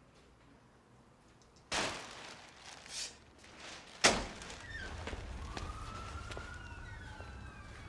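A couple of light clicks, then a glass door's handle and latch give a loud knock about four seconds in as the door is pushed open. City street sound comes in with it: a steady low rumble and a siren wailing, rising and then holding its pitch.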